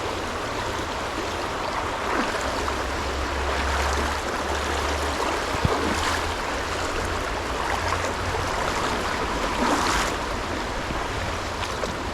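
Stream water flowing and rushing steadily, with a low uneven rumble underneath.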